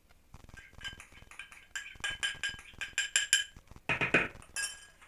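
Metal spoon clinking and scraping against a small ceramic bowl as sauce is scraped out of it, a rapid run of taps that each ring briefly. A couple of duller knocks follow near the end.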